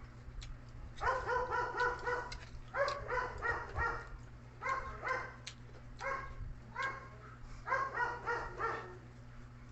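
A small dog yapping in quick runs of about five or six barks, each run about a second long and repeating every second or two, over a steady low hum.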